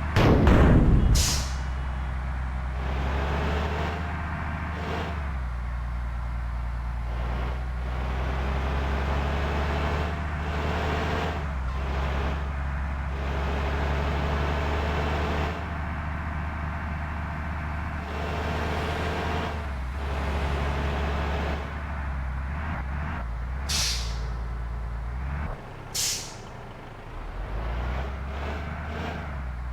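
Intercity bus's diesel engine running steadily, with short sharp air-brake hisses near the start and twice near the end, typical of stop-and-go driving in a traffic jam. A loud, brief burst of sound opens the stretch.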